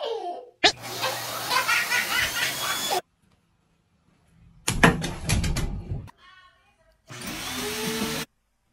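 Upright vacuum cleaner running, with voices over it. After a short gap come a few sharp knocks.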